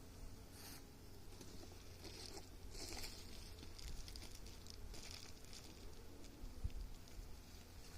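Faint, scattered rustling and scraping from beehive parts being handled, over a low steady hum.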